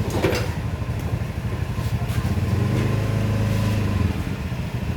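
A small engine running steadily with a fast, even throb, and a brief sharp knock just after the start.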